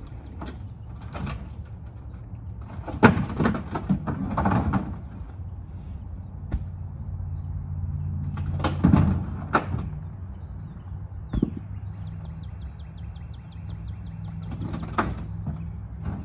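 Cut cherry firewood rounds knocking and scraping against each other and the pickup's bed as they are loaded and stacked. The knocks come in clusters, loudest about three seconds in and again around nine seconds.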